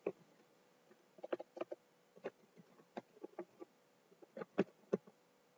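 Computer keyboard typing: irregular keystroke clicks, some in quick runs of taps.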